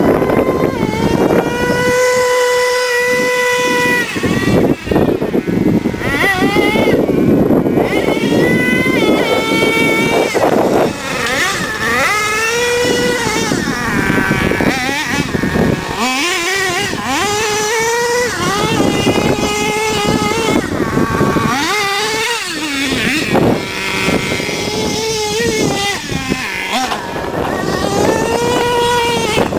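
HPI Savage SS 4.6 nitro RC monster truck's small two-stroke glow engine revving up and down over and over in a high-pitched whine, with short stretches held at a steady top pitch between quick drops off the throttle.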